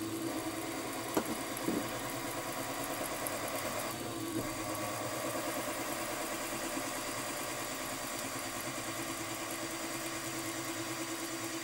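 Milling machine spindle running steadily as a counterbore cutter is fed into an aluminium pulley, with two light clicks about a second in.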